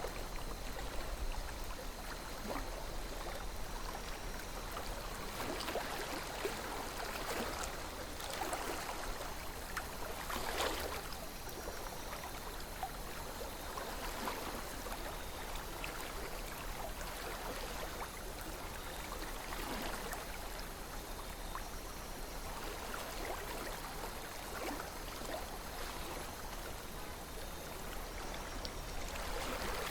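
River water flowing steadily, with a continuous rush and many small splashes and gurgles.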